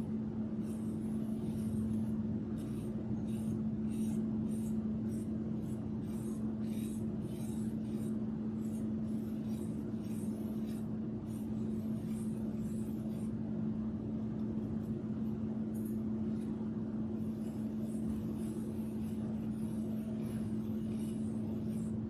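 A steady low hum with one fixed tone runs throughout. Over it come faint, irregular scratchy strokes of a paintbrush swirling tempera paint on a foam tray.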